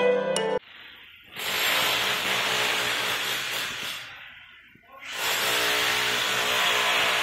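Handheld electric hammer drill driven into the floor, run twice: it starts about a second and a half in, stops about four seconds in, and starts again about five seconds in. A few piano notes of music end just at the start.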